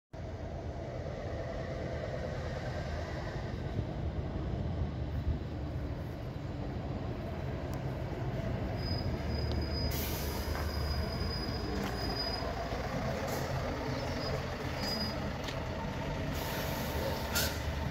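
Scania V8 truck engine running low and steady as the tractor-trailer rolls slowly closer, getting a little louder. Short hisses of air about halfway through and again near the end.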